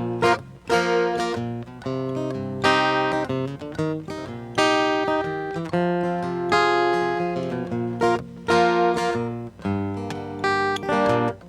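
Acoustic guitar strumming chords in a rhythmic pattern, in the instrumental break of a folk song without singing.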